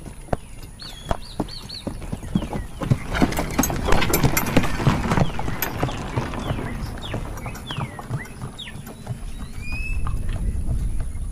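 Horse hooves clip-clopping on a dirt road as a horse pulling a buggy trots past, loudest about four seconds in, over the low rumble of the buggy's wheels.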